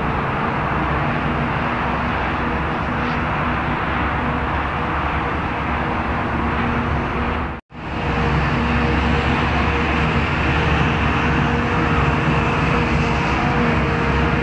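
Claas Jaguar 880 forage harvester running steadily under load as it picks up and chops grass for silage, with a tractor and trailer running alongside. It makes a constant machine hum with a steady drone, and the sound cuts out for an instant just past halfway.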